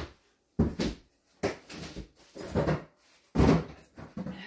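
A string of about five knocks and bangs from household handling, the loudest about three and a half seconds in.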